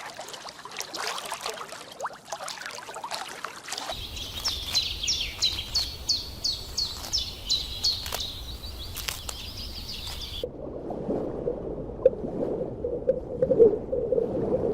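Animal recordings cut together. Rough, noisy calls come first. Then a bird repeats a short high chirp about twice a second for several seconds, and after a sudden cut a lower, rougher animal call follows.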